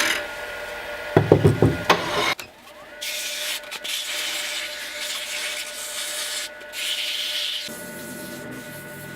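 Wood lathe running with a steady whine while a tool or abrasive rubs against the spinning hardwood knob, a dry rasping hiss from about three seconds in that eases off near the end. A few loud knocks come about a second in.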